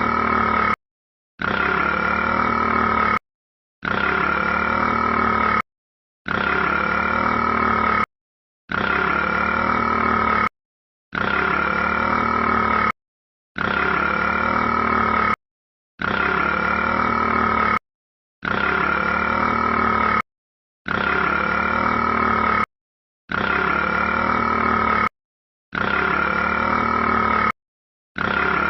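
A drawn-out burp, looped: about two seconds of burp, then a clean half-second of silence, repeated identically about a dozen times.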